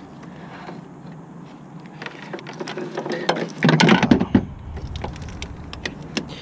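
Hands working a serpentine drive belt around the engine's pulleys: scattered clicks, knocks and rubbing, with the loudest cluster of knocks and scraping about four seconds in.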